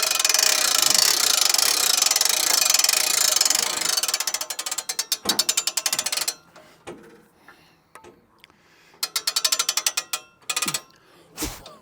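Ratchet of a Woodland Mills sawmill's head-height crank clicking rapidly as the saw head is raised: a long run of fast clicks for about six seconds, a second shorter run later, and a single knock near the end.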